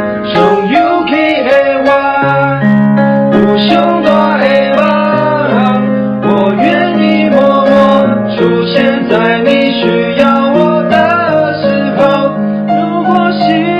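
Music: piano or electric keyboard playing sustained chords, with a sliding, pitch-bending melody line over them.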